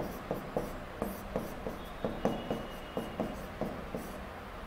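Handwriting on a board: a run of short scratching strokes, about three a second.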